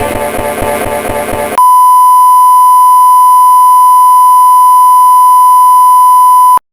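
A harsh, dense mix of tones and noise gives way about a second and a half in to a single loud, distorted electronic tone near 1 kHz. The tone holds dead steady for about five seconds and cuts off suddenly near the end.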